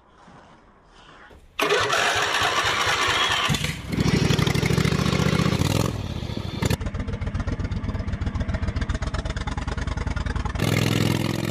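Small riding-mower engines in a run of abruptly cut clips. After a faint opening, an engine comes in loud about a second and a half in. It changes to a lower steady drone around four seconds in, and from about seven seconds runs with a fast, even firing beat.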